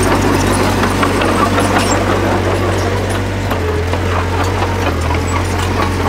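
Heavy diesel engine of earthmoving machinery running steadily, its note shifting a little lower about three and a half seconds in, with scattered metallic clicks over it.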